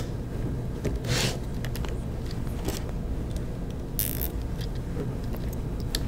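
Nylon zip ties being worked onto plastic wire posts by hand: scattered light clicks and two short rasps, one about a second in and one about four seconds in.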